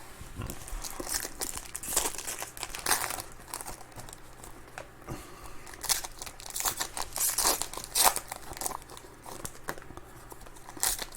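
Trading-card pack wrappers (2021 Donruss Optic baseball packs) being torn open and crinkled by hand. The sound is a run of irregular rustles and rips.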